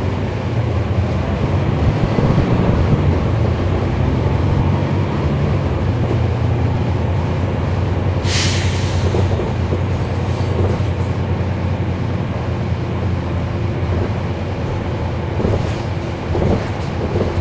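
Inside a 2011 NABI 416.15 (40-SFW) transit bus under way: the Cummins ISL9 diesel and the drivetrain give a steady low drone with road rumble. A brief hiss comes about eight seconds in, and there are a few light knocks near the end.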